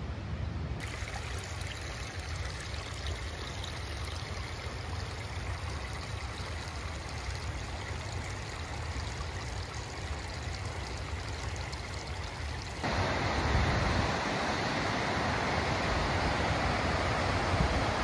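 Steady rush of mountain water from a stream and waterfall. It jumps abruptly louder and brighter about thirteen seconds in, with a smaller step about a second in.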